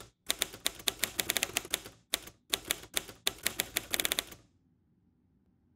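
Typewriter keystrokes clacking in quick runs, several strokes a second, with two short pauses near the middle. The typing stops about three-quarters of the way through.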